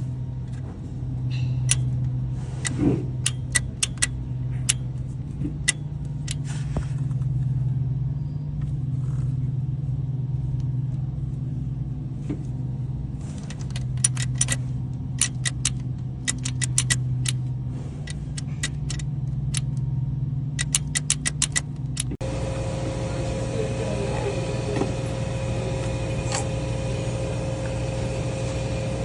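GMC Sierra pickup engine running steadily, overlaid by many sharp metallic clicks and ticks. About three-quarters of the way through, the sound changes abruptly to a different steady hum carrying a single held tone.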